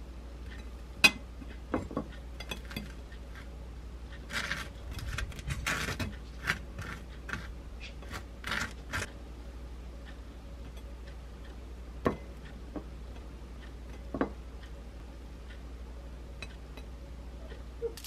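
A table knife clinks sharply against a glass jar of whole-grain mustard about a second in, then scrapes in several raspy strokes as it spreads the mustard across toasted bread. A couple of light knocks follow later.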